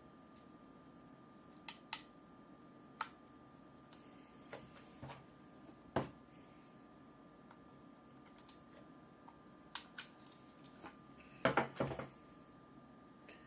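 Scattered sharp clicks and light taps of small parts and tools being handled on a workbench, with a brief cluster of knocks near the end.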